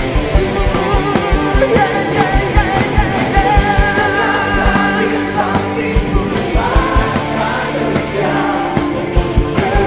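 Live worship band playing an upbeat rock-style song, with a steady driving kick drum under sung vocals.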